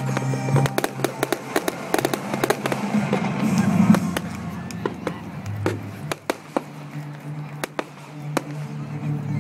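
Aerial fireworks bursting overhead with a rapid crackle of sharp pops. The pops are dense for the first four seconds and then thin out to scattered ones, with music playing underneath.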